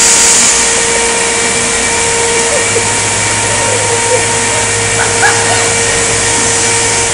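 Steady loud machinery noise of a metal fabrication shop, a constant hiss with a steady hum through it; a deeper hum comes in about two and a half seconds in.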